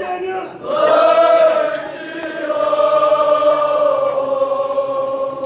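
Male chanting of a Kashmiri marsiya (mourning elegy), with one long line held from about a second in.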